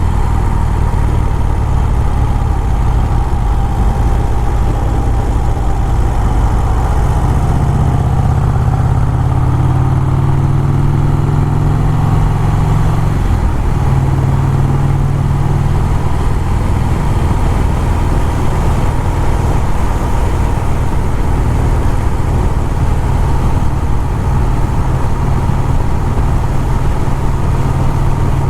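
1951 Vincent Rapide's 998 cc V-twin engine running under way on the road. The revs climb for a few seconds, drop sharply about halfway through as at a gear change, then run steady.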